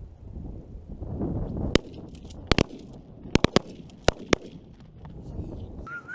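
A volley of shotgun fire at incoming pigeons: about eight sharp blasts in under three seconds, some in quick pairs and a run of three, over a low rumble of wind on the microphone.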